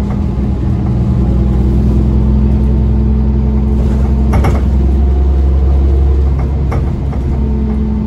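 Orion transit bus heard from inside the cabin, its drivetrain running with a steady low drone that eases off a little about six seconds in. A few sharp knocks come through about four and a half seconds in and again near seven seconds: the knocking on the right side that the rider puts down to the bus's old age, from under a seat or the wheel.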